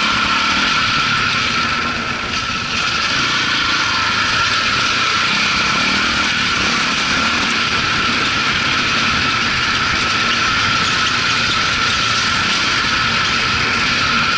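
KTM 400 EXC dirt bike's four-stroke single-cylinder engine running at a steady pace on a trail ride, recorded on board, with a brief dip in level about two seconds in.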